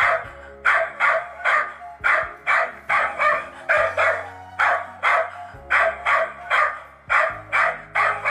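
A dog barking over and over, about two or three sharp barks a second.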